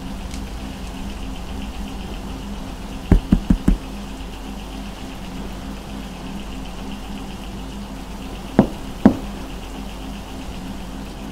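Knocking on a wall: four quick knocks about three seconds in, then two more some five seconds later, over a steady low hum.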